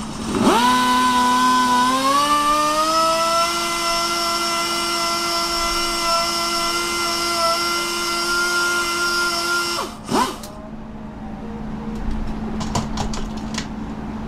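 Electric drill spinning a stone hone inside a brake wheel cylinder. The motor whine spins up, rises in pitch about two seconds in, holds steady, then winds down and stops about ten seconds in. A few light clicks follow.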